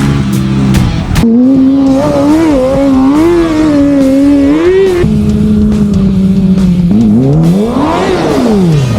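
Kawasaki ZX-6R inline-four engine in a cross kart running at high revs, its pitch rising and falling with the throttle, then holding steady before a sweep up and back down near the end.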